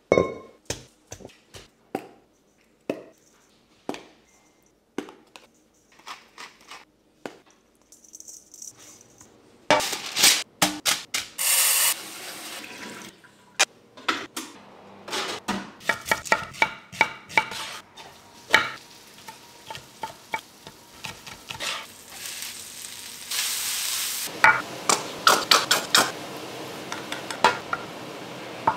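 Cooking sounds with no talk: at first scattered clinks and taps of a utensil in a stainless steel mixing bowl, then busier clatter of pots and utensils with stretches of hiss that fit sizzling food. Near the end come quick knife strokes on a wooden chopping board.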